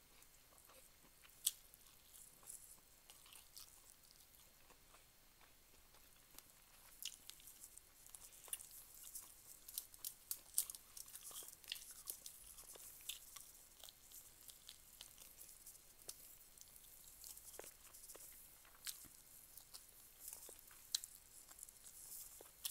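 Faint, close-up chewing and crunching of food, with many short sharp wet clicks from the mouth that come thickest about a third of the way in and again near the end.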